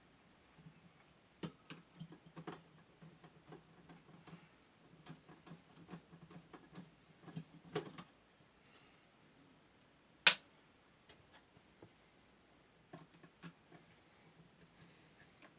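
Scattered small clicks and taps of hand tools, screws and plastic parts as a small desk fan is taken apart by hand, with one sharp, louder click about ten seconds in.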